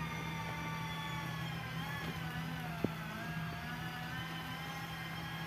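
Backhoe loader's diesel engine running steadily while the machine drives, a low drone with a higher whine that wavers slightly in pitch. A single sharp click sounds about halfway through.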